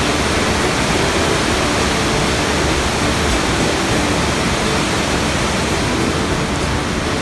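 River rapids rushing: a steady, loud, unbroken noise of white water.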